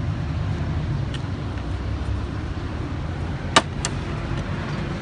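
Steady low hum of an idling car engine. About three and a half seconds in, a sharp plastic click is followed by a lighter one as a hand grips the Chevrolet Aveo's inside door mirror trim cover.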